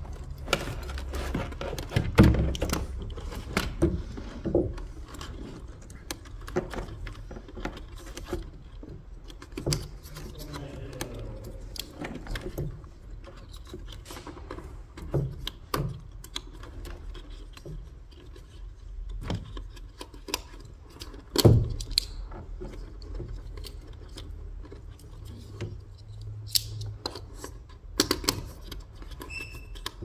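Plastic wiring connectors and harness being handled and plugged into the plastic housing of a Mercedes W204 front SAM module: scattered clicks, light knocks and rattling, with two louder knocks, one just after the start and one about two-thirds through.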